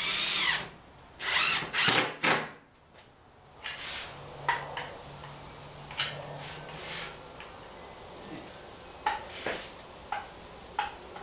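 Cordless drill driving screws into plywood in four short runs over the first two and a half seconds, the motor's whine bending up and down as each screw seats. After that come quieter scattered clicks and knocks as a caulking gun is squeezed to lay a glue bead.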